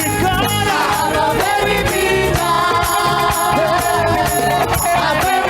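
Live church praise band playing gospel worship music, voices singing over a steady percussion beat.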